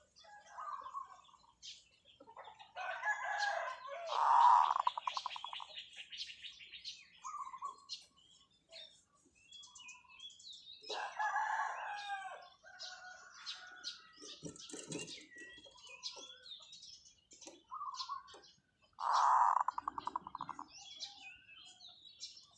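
Zebra dove cooing: three loud calls, about four seconds in, around eleven seconds and near the end, the first and last trailing off in a rapid stutter of notes.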